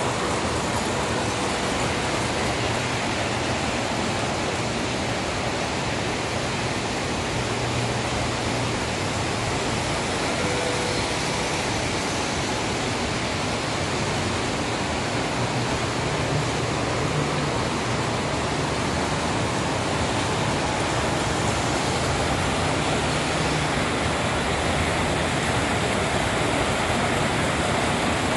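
Several original Lionel standard gauge toy trains running at once on the layout's metal track, making a steady, even rumble of wheels and motors.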